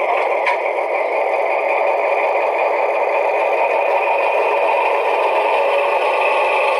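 DCC sound decoder of a Lenz O gauge DR V100 model locomotive playing its diesel engine sound, running steadily through the model's small onboard speaker.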